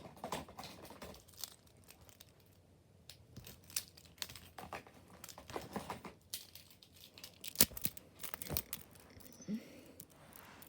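Handling noise as other TSA padlocks are picked up and sorted: irregular crinkling and rustling with scattered small clicks, and one sharp knock about seven and a half seconds in.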